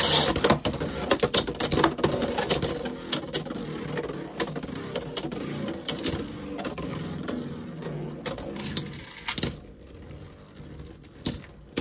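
Two Beyblade X tops, Wyvern Gale and Unicorn Sting, are ripped from their launchers at the start, then spin against each other across the clear plastic stadium: a steady whirring rattle broken by many sharp clacks as they collide. The sound dies down about nine and a half seconds in, as the tops slow, with a last clack near the end.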